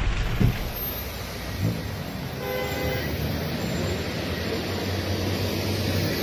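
Steady outdoor noise of traffic and flood ambience, with a horn sounding once, briefly, about two and a half seconds in.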